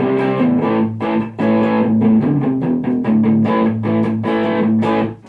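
Electric guitar played through a guitar amplifier, with chords strummed in a steady rhythm that stops abruptly near the end.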